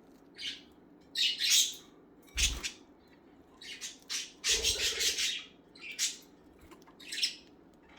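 Pet budgerigars (albino and lutino budgies) giving a string of short, harsh squawks and chatter, with two dull low bumps partway through.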